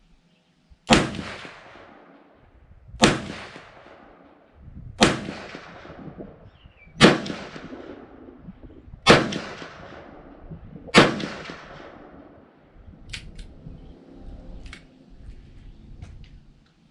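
Smith & Wesson Model 19-3 .357 Magnum revolver fired six times, about two seconds apart, each shot trailing off in an echo, emptying its six-round cylinder. A few light clicks follow near the end.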